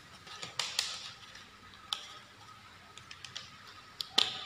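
Handling a Sanwa YX360TRF analog multimeter's range selector and test probes: scattered sharp plastic clicks and taps, a few small ticks in the middle and the loudest pair of clicks near the end.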